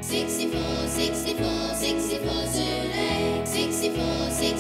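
Instrumental opening of a cheerful children's TV theme tune: a bouncy bass line changing note about once a second under a steady, light percussion beat.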